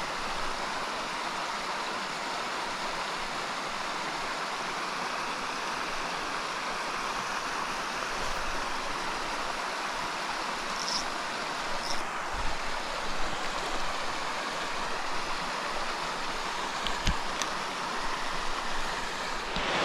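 Small mountain stream running over rocks: a steady rush of flowing water, with a few light clicks about halfway through and again near the end.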